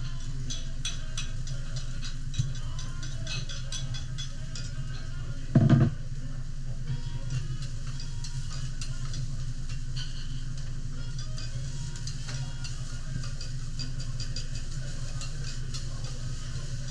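A steel spatula and knife click and scrape on a hot teppanyaki griddle with light sizzling, over a steady low hum. About six seconds in there is one short, loud, low burst.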